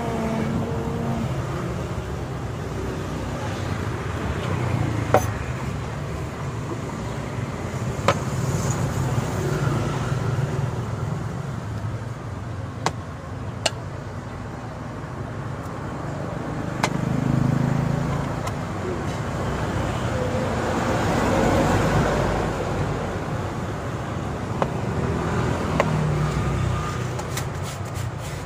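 Road traffic running steadily, with vehicles swelling past twice, around a third of the way in and again about two-thirds in. A handful of sharp clicks and taps stand out over it.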